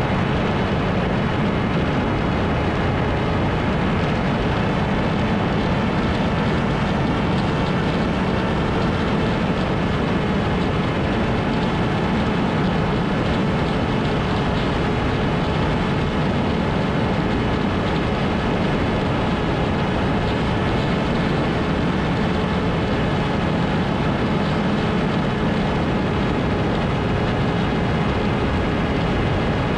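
Electric motor and propeller of an FPV flying wing running at a steady throttle, a constant tone holding one pitch over a rush of air noise.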